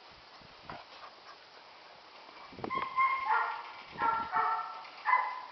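Catahoula puppies barking and yipping in play: a quick run of short, high-pitched yips starting about halfway through.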